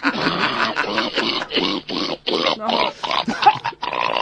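A man's unusual coughing fit: short coughs in quick succession, about three a second.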